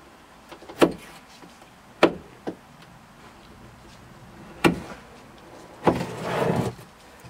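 Several sharp knocks on wooden boards, a second or two apart, then a short scraping rustle near the end.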